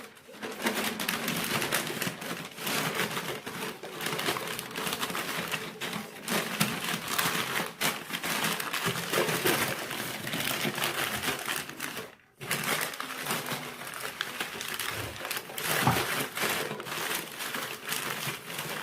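Continuous crinkling and rustling, as of material being handled, with a short break about twelve seconds in.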